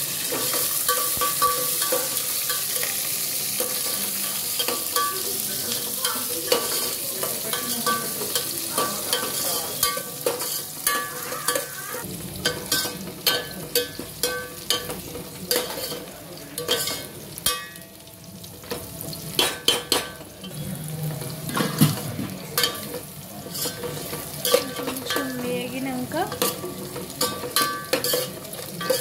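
Sliced onions sizzling in hot oil and ghee in an aluminium pot, with a steel spoon scraping and clinking against the pot as they are stirred. The sizzle is strongest in the first half, and the scrapes come more often later.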